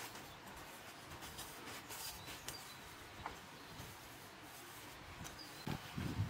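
Faint rustling and small clicks of gloved hands working the Audi A8 D3's oil filter cap down into its housing in the engine bay, with a louder scuffing of handling near the end.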